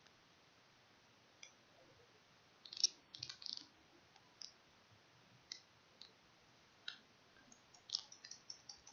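Scattered clicks of a computer mouse and keyboard, singly and in small quick clusters about three seconds in and near the end, with faint gaps between.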